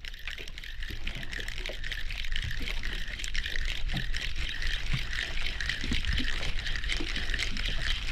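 Water lapping and trickling against the hull of a small boat at sea: a steady splashy hiss with small irregular slaps.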